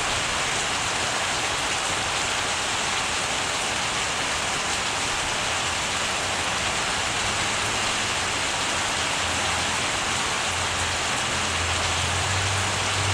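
Steady heavy rain falling, an even hiss throughout, with a low rumble building in the last few seconds.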